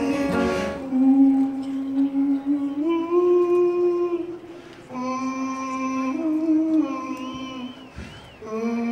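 A man singing a slow song in long held notes, each a second or more, stepping up and down in pitch, with short pauses for breath about halfway through and near the end.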